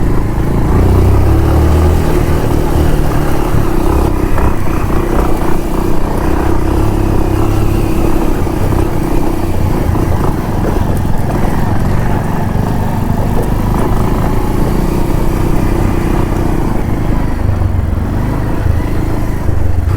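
Bajaj Pulsar 150's single-cylinder engine running at a fairly steady speed while the motorcycle is ridden, over a heavy low rumble.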